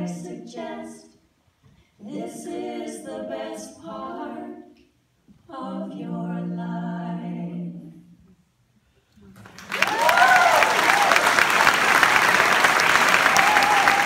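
Women's voices singing a cappella in three phrases with short pauses between them, closing the song. From about two-thirds of the way through, an audience applauds and cheers loudly.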